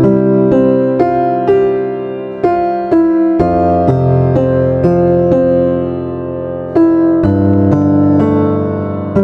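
Background music: a slow, gentle piano melody over sustained chords, a new note about every half second.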